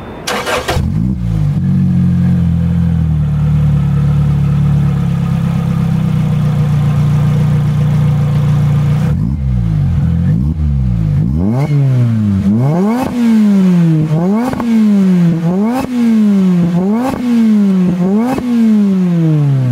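2007 Lotus Exige S's supercharged 1.8-litre four-cylinder engine, fitted with a Larini Club Sport aftermarket exhaust, starts up and runs at a steady idle. From about halfway it is revved repeatedly, about eight quick blips, each rising and falling.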